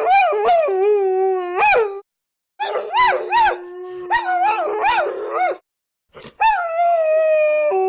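Dogs howling: long pitched howls that waver and slide up and down, in three stretches broken by short dead-silent gaps about two seconds in and past halfway. In the middle stretch two dogs howl at once, one holding a steady low note while the other swoops higher.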